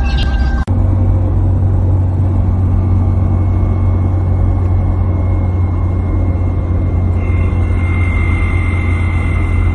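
Lada Niva running: a steady low drone, with a thin high whine that grows stronger near the end.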